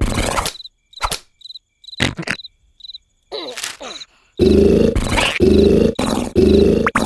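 Cartoon snoring: loud, rhythmic rasping bursts that cut off about half a second in. Crickets chirp in the quiet that follows, with a few small clicks. The snoring starts again, heavy and in quick repeated bursts, about four and a half seconds in.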